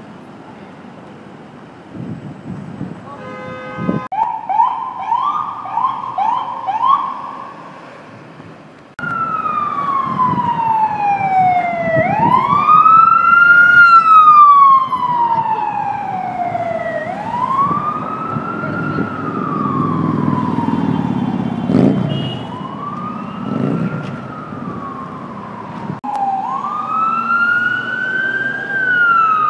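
Emergency vehicle sirens in city traffic. First comes a run of quick short yelps, about two a second, with a brief horn sound about four seconds in. Then a loud, slow wail falls in pitch over a few seconds and sweeps back up, again and again.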